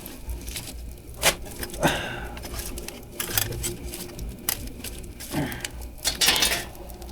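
Small pieces of split firewood knocking and clattering as they are handled and fed into a wood-fired boiler, with a few sharp knocks scattered through.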